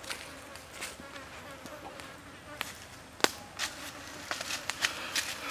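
Insects buzzing in the forest, with scattered light clicks and ticks throughout and one sharp click a little after three seconds in.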